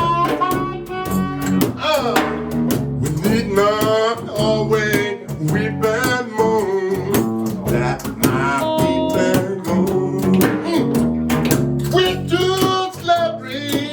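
Live blues music: a bending harmonica lead over a strummed guitar and bass with a steady beat.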